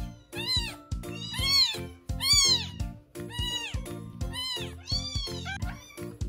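Newborn kitten mewing over and over, about once a second, each cry high and rising then falling in pitch, with background music underneath.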